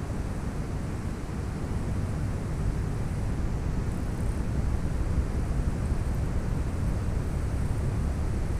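Steady low rumble of wind buffeting the microphone, over the wash of fast-flowing muddy canal water.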